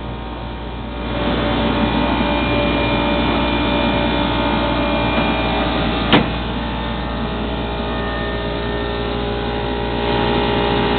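Steady mechanical hum of a homemade waste-oil-heated clothes dryer running: fan and drum motor, with several steady tones. It grows louder about a second in, and there is a single sharp click about six seconds in.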